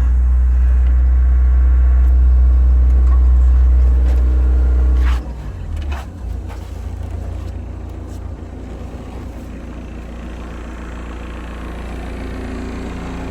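Excavator's diesel engine running, loud for about five seconds and then dropping sharply to a lower, steady running level, with a single knock just before the drop.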